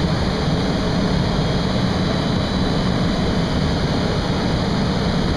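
Steady, even roar of a crystal glassworks floor, with the furnace burners and the machinery running.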